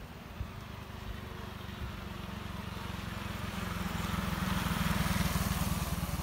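A motorcycle riding past, its engine growing louder to a peak about five seconds in and then easing off.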